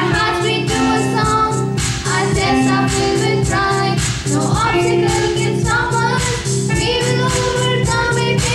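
Girls singing a Hindi song in praise of Gujarat through microphones, over instrumental accompaniment with a steady beat.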